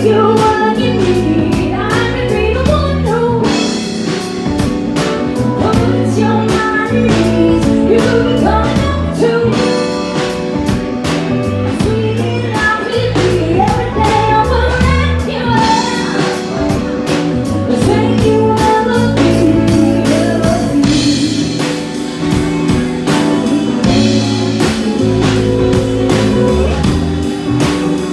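A live band playing a song, with a singer over guitar and a drum kit keeping a steady beat.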